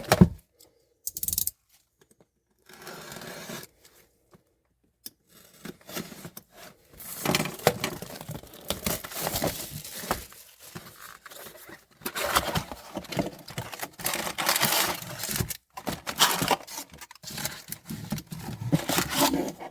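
Plastic wrap and cardboard of a trading-card hobby box being torn open, with packaging crinkling and packs rustling, in irregular bursts that come thicker after the first few seconds.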